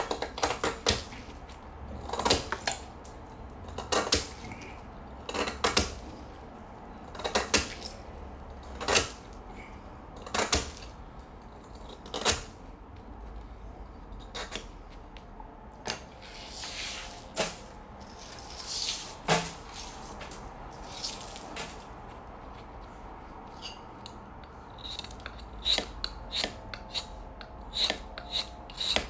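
Kitchen knife shaving and chipping a block of clear ice: sharp scraping strokes about every one and a half to two seconds, a few longer scrapes midway, then quicker, shorter strokes near the end.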